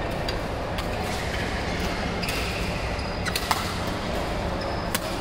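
Badminton rackets striking a shuttlecock: a handful of sharp, crisp hits during a rally, the strongest close together near the end, with brief squeaks of court shoes over the steady din of a large sports hall.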